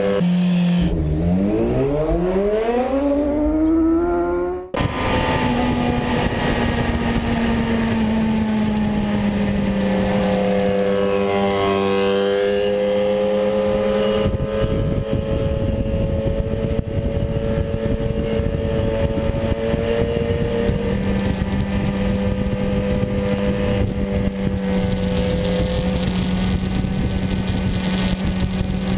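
BMW S 1000 RR inline-four engine revving up hard in the first few seconds, then running at a steady cruising note that eases off and picks up again about halfway through, with wind rush over the bike.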